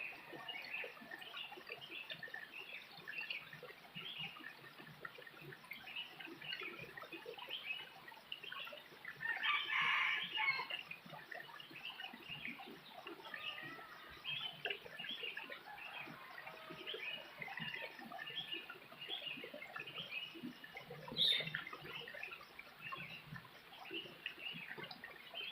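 Rural outdoor ambience of chickens and small birds chirping steadily, with a rooster crowing once, loudly, about ten seconds in. A brief sharp sound comes near the end.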